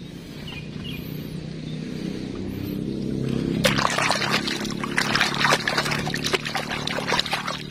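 Water splashing and sloshing as a muddy plastic toy is swished and rubbed by hand under water. The splashing starts about three and a half seconds in, after a quieter start.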